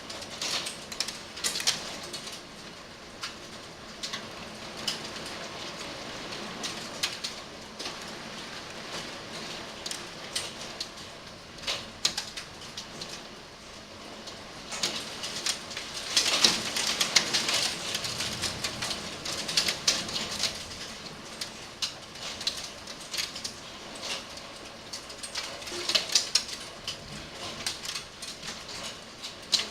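Hail and rain coming down, with hailstones striking hard surfaces in irregular clicks and knocks over the hiss of the rain. The strikes come thickest about halfway through and again near the end.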